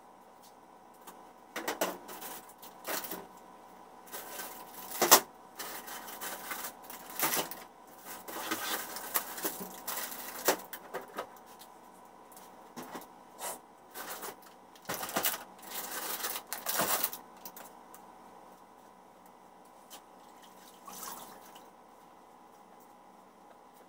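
Goods being handled and set down on a shop counter: an irregular clatter of knocks, clicks and rustling from containers and packages, with one sharp knock about five seconds in. The handling thins out after about seventeen seconds, and a faint steady hum lies underneath.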